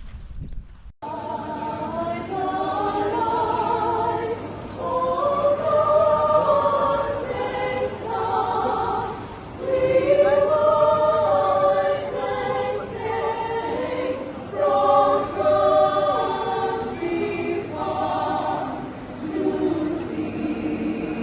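A choir singing, several voices holding and gliding together in harmony, coming in abruptly about a second in.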